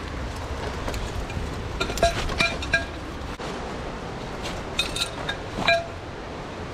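Small metal clinks and jingles with a brief ring, in two clusters a few seconds apart, over the steady rush of a mountain stream.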